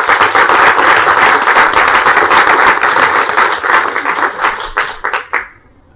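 Audience applauding: dense clapping that dies away about five and a half seconds in.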